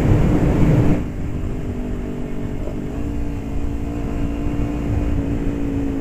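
A motorcycle on the move, with loud rushing wind and engine noise. About a second in this drops abruptly to a quieter, steady engine hum.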